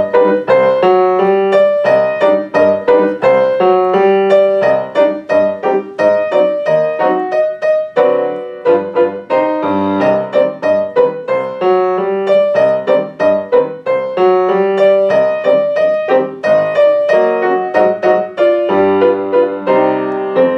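Grand piano played solo: an elementary teaching piece with the student melody and the teacher accompaniment played together, in a steady rhythm of struck notes over a repeating bass line.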